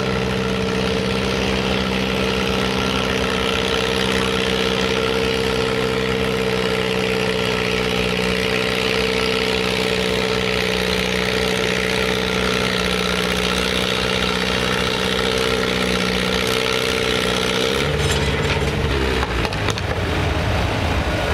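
Antique farm tractor's engine running steadily under heavy load as it drags a weight sled in a tractor pull. About three seconds before the end the engine note drops as the throttle comes back at the end of the pull.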